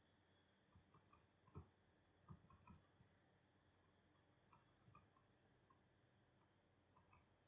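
A steady high-pitched trill, pulsing rapidly and evenly without a break, like a cricket chirping. A few faint ticks and soft taps are scattered through it.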